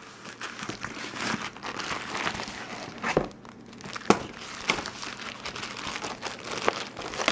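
Packaging being unwrapped from a new head gasket: continuous crinkling and rustling, with a few sharp clicks and ticks.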